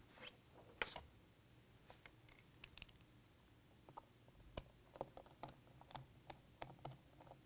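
Faint small clicks and ticks of a Phillips 00 screwdriver working the tiny screws on a 2007 MacBook Pro's RAM shield. The clicks are scattered at first, then come as a quicker run of about three a second in the second half.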